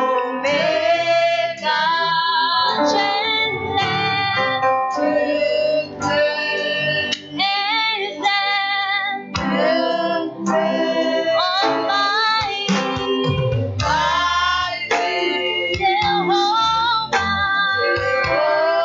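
A woman singing a song over instrumental accompaniment, the melody carried in held, gliding notes.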